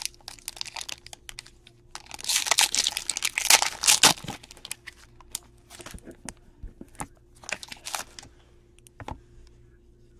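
Foil wrapper of a trading-card pack crinkling and tearing as it is opened by hand, densest and loudest from about two to four seconds in, then thinning to scattered crackles.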